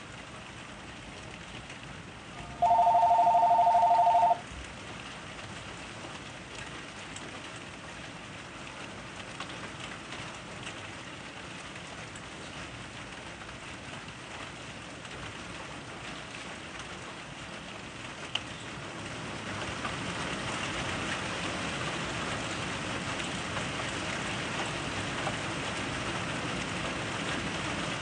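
Steady rain falling, heavier and louder from about twenty seconds in. Near the start a loud two-tone electronic beep sounds once for about a second and a half.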